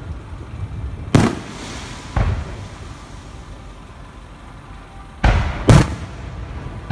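Fireworks shells bursting overhead: four sharp booms, one about a second in, another a second later, then two in quick succession near the end, over a low steady rumble.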